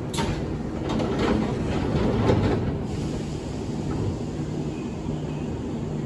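Keihan 7200-series electric train standing at a platform, its sliding doors shutting with a series of knocks in the first three seconds, over the steady hum of the stopped train's equipment.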